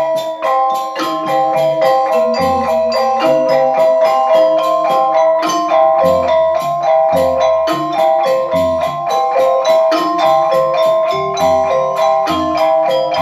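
Balinese semar pegulingan gamelan playing: bronze keyed metallophones ring out in fast, dense struck notes, over deep drum strokes that recur every second or so.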